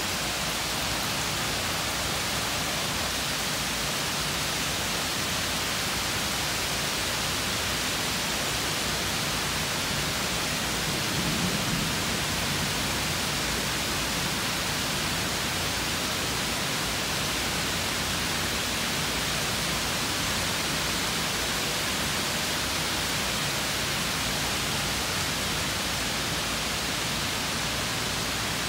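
Heavy downpour: a steady hiss of rain falling on trees and lawn, with a brief low swell about eleven seconds in.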